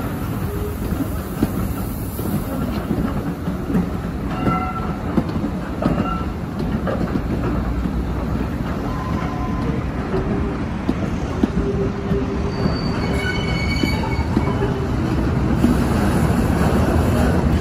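Train coaches rolling past with a steady rumble of wheels on rail, with short squealing tones from the wheels now and then, most clearly about thirteen seconds in.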